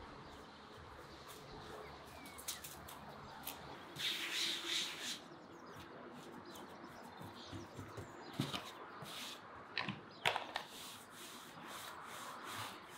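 Chickens, with a brief flurry of wing flapping about four seconds in. After that come light knocks and rubbing from hands pressing dough on a floured wooden board and a rolling pin working it.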